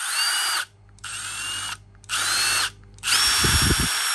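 Milwaukee M18 cordless driver's motor run with no load: three short trigger pulls, each spinning up to a high whine and cutting off, then a steady run near the end.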